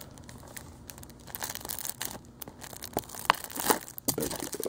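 Plastic shrink wrap being torn and peeled off a Blu-ray case: irregular crinkling and rustling, with a few sharper snaps a little past three seconds in.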